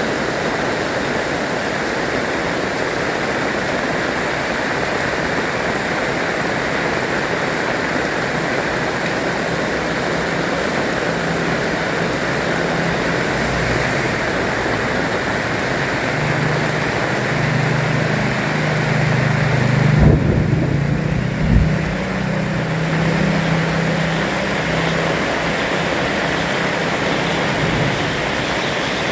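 Heavy rain pouring steadily. A low droning hum builds from about a third of the way in and fades near the end, with two sharp thumps about two-thirds of the way through.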